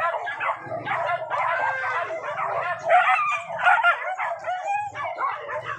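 A pack of hunting dogs yelping, barking and howling together in a dense, overlapping chorus of high calls.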